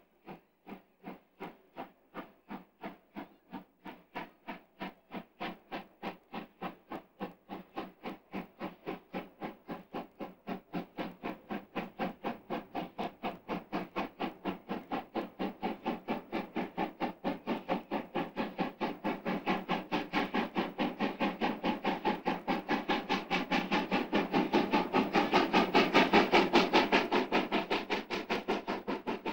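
DB class 41 two-cylinder steam locomotive 41 360 working hard up a steep grade: a fast, regular chuffing of exhaust beats that grows louder as it approaches, loudest a few seconds before the end.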